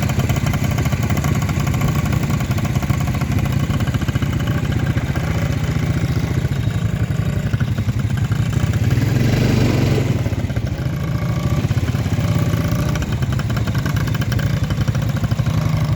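ATV engine running steadily, close up, with a brief rush of noise about halfway through.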